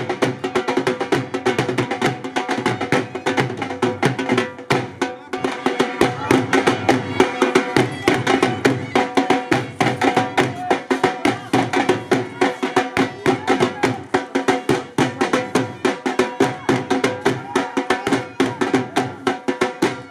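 Dhol drums beating a fast, driving bhangra rhythm, with a steady melody line held over the beat.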